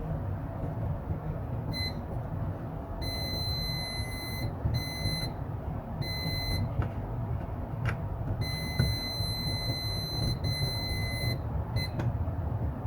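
Multimeter continuity beeper sounding in a string of beeps of uneven length, some brief and some held for a second or two, as the probes touch a laptop motherboard power rail. The beeping is the sign of a very low impedance on that rail, pointing to a short. A steady low hum runs underneath.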